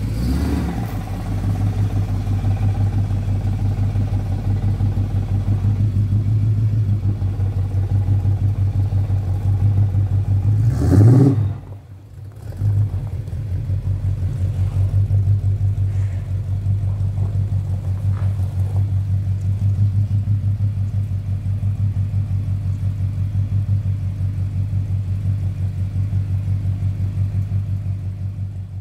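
1971 Oldsmobile 98's 455 V8 running at a steady idle while the car creeps forward, with one short rev about eleven seconds in. It idles smoothly with no lifter tick or rod knock while the engine smokes from grime burning off or from leaking valve cover gaskets.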